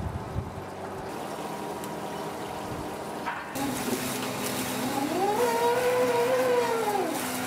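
Steady low mechanical hum; about halfway through, a deck crane's hydraulic winch starts whining as it hoists a loaded net bag of scallops, its pitch rising and then falling over two or three seconds.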